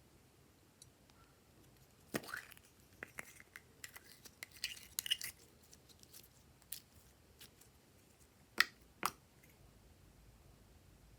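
Slime being handled: a run of sticky clicks, squelches and crackles starting about two seconds in, then two sharp clicks later on.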